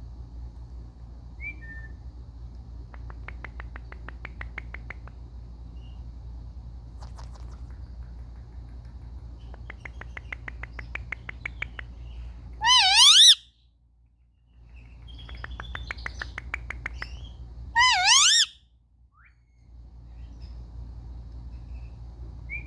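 Indian ringneck parakeet making bursts of rapid clicking chatter, and twice, a few seconds apart, a loud piercing call whose pitch wavers quickly up and down.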